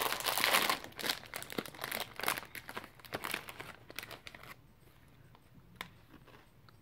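Crinkly snack bag of potato-straw chips being handled and opened: dense crinkling for about the first second, then sparser rustles and a few clicks that die away after about four and a half seconds.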